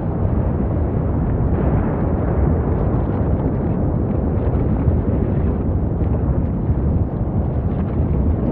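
Erupting lava fountain: a steady, loud, low rumble with small crackles and pops from spatter.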